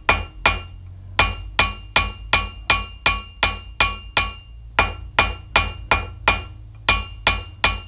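Blacksmith's hand hammer striking a red-hot steel bar on an anvil face, forging the jaw of a tongs half down to final thickness and width. Blows come at a steady rhythm of about two and a half a second, with a couple of short pauses, each blow ringing the anvil.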